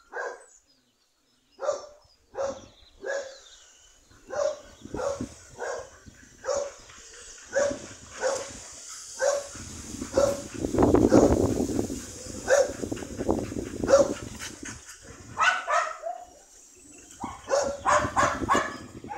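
A young dog barking and yipping in short calls about once a second, more rapidly near the end. In the middle stretch there is a louder rustling noise.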